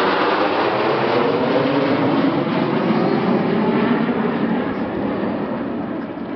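Six Kawasaki T-4 jet trainers flying a tight formation pass overhead with a loud, steady jet roar. The roar fades over the last second or two as the formation flies away.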